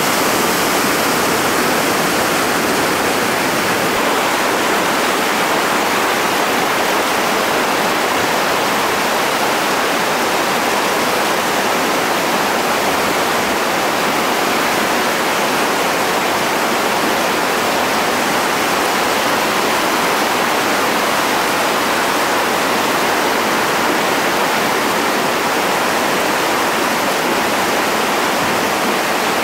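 Whitewater rapid and falls: the steady, loud rush of a river pouring over and through rocks.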